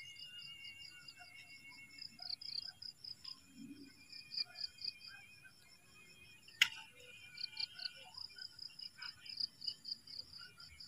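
Faint field ambience of insects chirping: short high-pitched chirps in irregular clusters, with a thin wavering whine underneath. A single sharp click comes about two-thirds of the way through.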